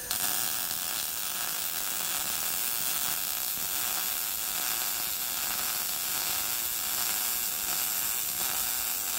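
MIG welder arc laying one continuous bead on steel bracket and tube: a steady crackling sizzle that starts at once and holds unbroken.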